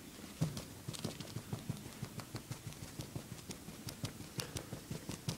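Quick light taps on a wooden floor, about five a second, as a stuffed toy dog is bounced along it toward a kitten; the first tap, about half a second in, is the loudest.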